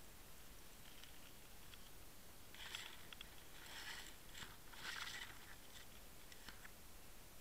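Faint scraping rustles in three short spells, about three, four and five seconds in, with a few light clicks over a low hiss: the underwater camera and lure rig brushing through reed stems as it is pulled along.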